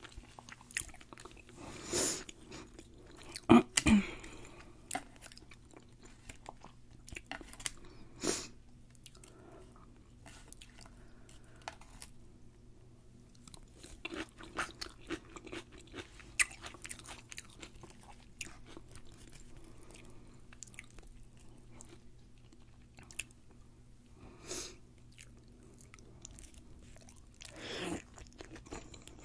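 Close-miked chewing of deep-fried sushi roll: wet mouth clicks and crisp crunching of the fried coating, with several louder crunches and a pair of sharp ones about four seconds in.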